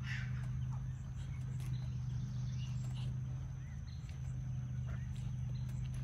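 A steady low hum, with faint scattered clicks and a short rustle at the start.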